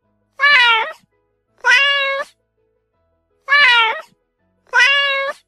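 Domestic cat meowing four times, in two pairs of short meows, the second pair matching the first.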